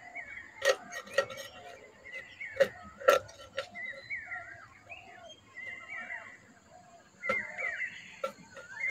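Rohu fish being scaled against a boti blade: sharp scraping strokes as the scales flick off, several in the first three seconds and more near the end. Birds chirp in the background.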